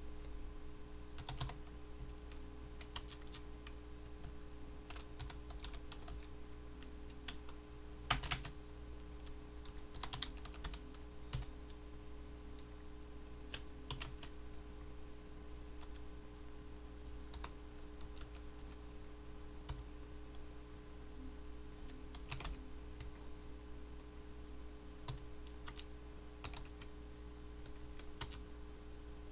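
Typing on a computer keyboard: irregular bursts of keystrokes with pauses between them, over a steady low electrical hum.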